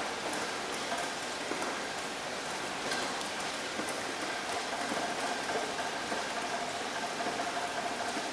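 Steady rain falling, an even dense hiss with scattered sharper drop ticks.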